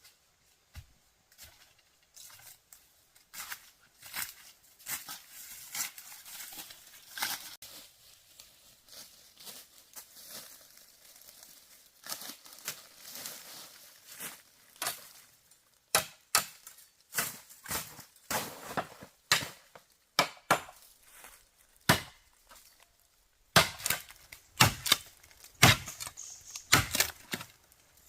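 Irregular sharp chopping knocks, coming thicker and louder in the second half and strongest over the last few seconds.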